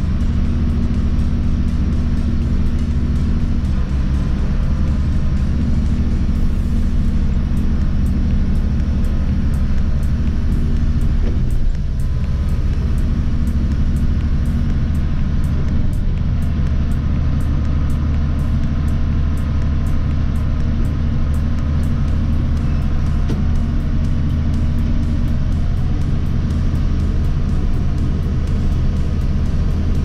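John Deere 6506 tractor engine running steadily under load, heard from inside the cab.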